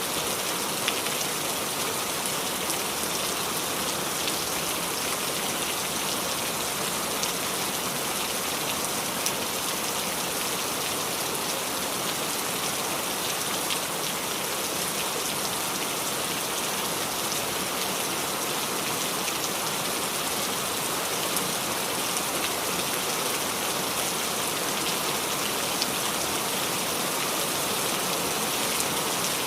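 Steady rain falling on leaves, a constant dense hiss with scattered sharper drop ticks.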